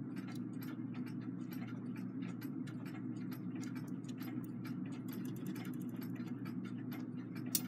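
Brass strike train of a clock movement running slowly under a finger, with no fly fan fitted: many small, irregular, rapid clicks of gear teeth and count levers as it counts, over a steady low hum.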